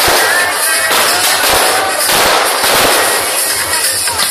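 Aerial fireworks going off: a dense, continuous run of bangs and crackling from bursting shells.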